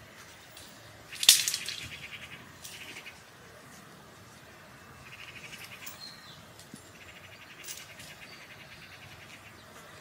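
Meadow insects trilling in four short, rapidly pulsed bursts, with a sharp click about a second in just before the first and loudest burst.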